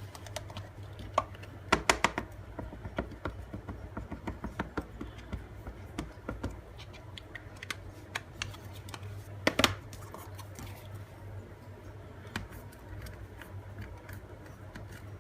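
Light taps and clicks of rubber stamping by hand: the stamp being inked from an ink pad and the stamp press closed down onto paper, with a few louder clicks about two seconds in and near ten seconds. A steady low hum runs underneath.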